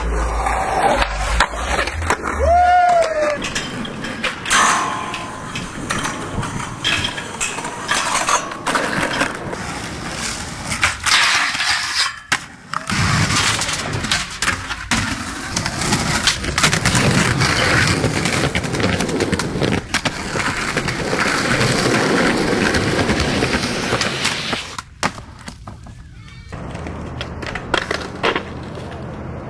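Skateboard sounds across several clips: wheels rolling on concrete, trucks and board grinding on rails and ledges, and sharp knocks of the board landing and hitting the ground, with a fall down a stair set near the end.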